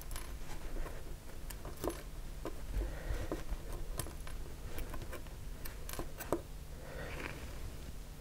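Faint, scattered light clicks and taps of steel tweezers handling a tiny etched-brass part on a wooden worktop, over a low steady room hum.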